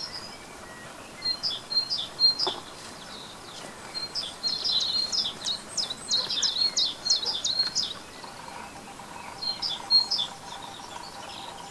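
Small songbirds singing, with short, high repeated notes and chirps coming in several bouts, the busiest in the middle.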